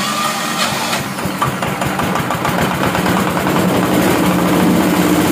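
Single-cylinder diesel engine of a rice-milling machine running steadily with a rapid, even firing beat, just after being started.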